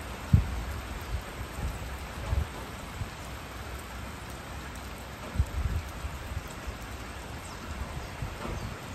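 Steady hiss of falling rain, broken by a few short, loud low thumps about half a second, two and a half and five and a half seconds in.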